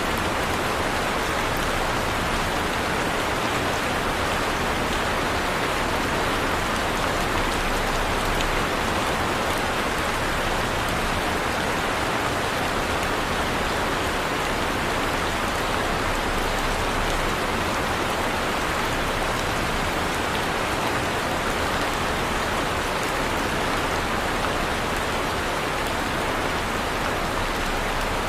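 Heavy rain falling steadily and hitting a surface, a constant dense hiss of drops with no thunder.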